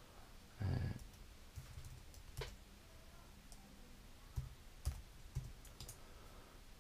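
Computer keyboard keys clicking one at a time as a password is typed, a few separate keystrokes spread out. A brief, louder low sound comes about three quarters of a second in.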